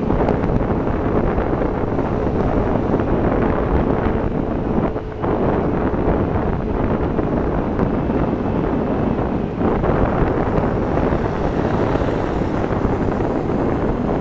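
Steady wind rush buffeting the microphone of a camera on a moving Yamaha Tricity scooter, with brief lulls about five and nine and a half seconds in.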